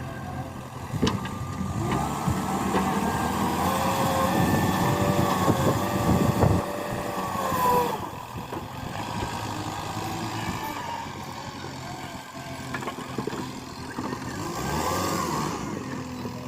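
JCB 3DX Eco backhoe loader's diesel engine running under load, rising in level after about two seconds and revving up and down, with a whine that rises and falls in pitch in the middle and again near the end.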